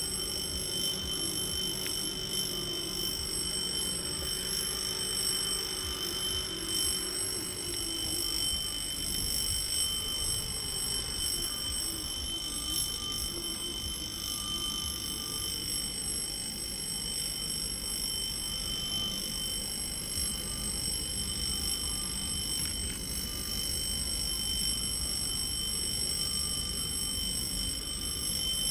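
Level crossing's electric warning bell ringing continuously as a steady, high, alarm-like ring, over a constant low rumble.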